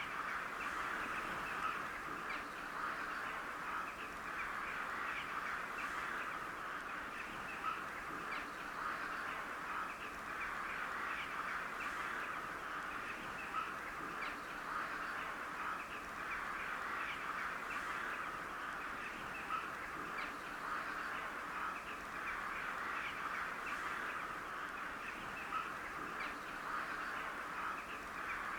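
Many crows calling at once: overlapping caws merge into a steady chatter, with now and then a single louder call standing out.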